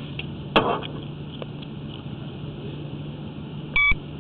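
Steady low hum with a sharp knock about half a second in, then a short electronic beep near the end from the sewer inspection camera equipment.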